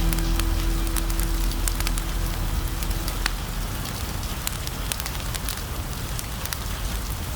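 Fireplace crackling with sharp pops over a steady hiss of rain. A low sustained music note fades out about three seconds in.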